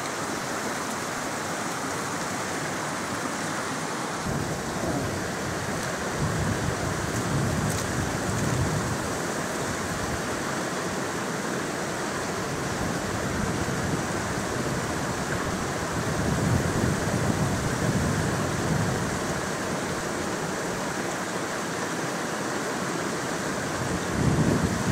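Steady rush of a moorland beck's running water, with wind gusting on the microphone in low rumbles several times.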